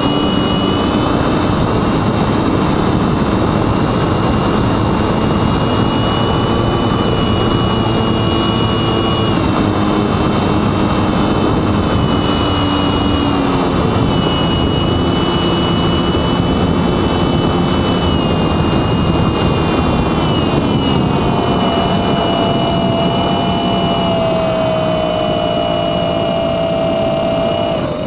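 Sunnysky X2220 brushless motor driving a 9x7.5 propeller on a Mini Talon flying wing, heard from the plane's onboard camera over a steady rush of wind. Its whine shifts pitch up and down every few seconds as the throttle changes, and a stronger tone comes in about three quarters of the way through.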